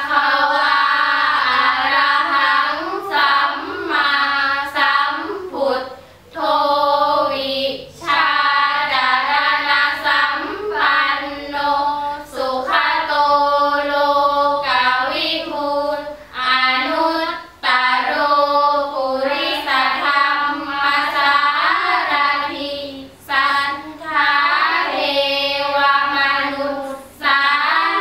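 Girls' voices chanting a Thai Buddhist sarabhanya together, a melodic sung recitation in long phrases with short breaks for breath between them.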